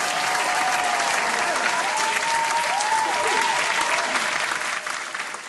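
Crowd applauding, with a few cheers rising and falling over the clapping, fading down near the end.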